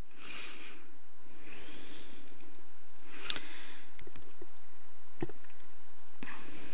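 Soft breathing close to the microphone, with a few faint clicks about three, four and five seconds in.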